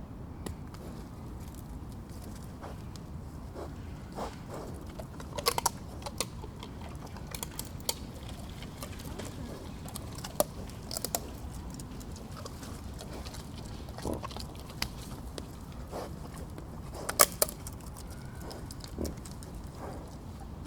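Wild boar eating nuts: irregular sharp cracks and crunches as shells are bitten open, over a steady low background hiss. The loudest cracks come in clusters about five seconds in and again near seventeen seconds.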